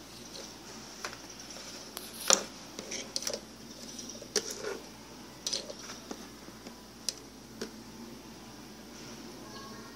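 Irregular short clicks and taps, about ten of them, the loudest a little over two seconds in, over a steady faint hiss.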